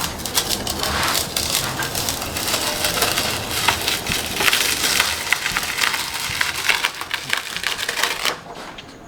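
Paper and tape crackling and crinkling with many small rapid clicks as the sublimation transfer paper is peeled off the freshly pressed puzzle. The crackle stops abruptly near the end.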